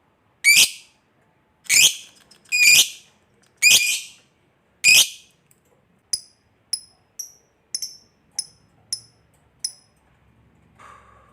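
Lovebird calling: five loud, shrill single calls about a second apart, then a run of seven shorter, higher and quieter chirps.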